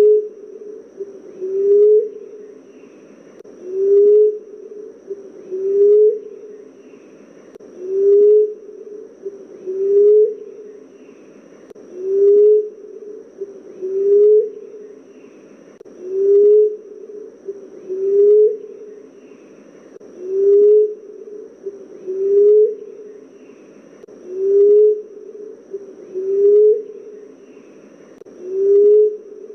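Emerald dove calling: a low, soft coo repeated steadily about every two seconds, each note rising slightly at its end.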